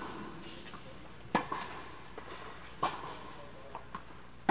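Tennis balls struck by rackets in a baseline rally: three sharp pops about a second and a half apart, the last near the end, with fainter taps between them. Each hit rings briefly in the echoing air-dome hall.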